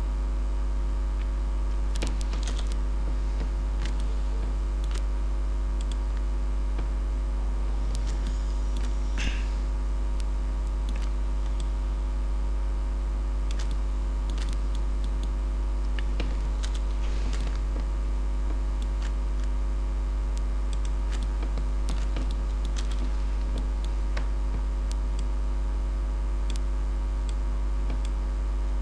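Steady low electrical hum, with scattered light clicks of a computer mouse and keyboard.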